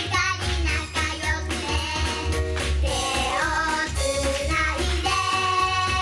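Young girls singing a Japanese idol pop song over a backing track with a steady low beat, ending on a long held note.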